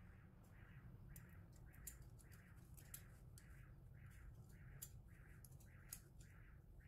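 Faint rhythmic scraping of a metal vegetable corer hollowing out an eggplant slice, about two strokes a second, with a few sharp clicks of the tool.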